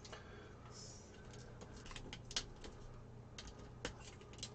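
Faint scattered clicks and small taps of metal screws and an Allen key as the bottom cover of a 3D printer is being unscrewed, with a few sharper clicks in the second half.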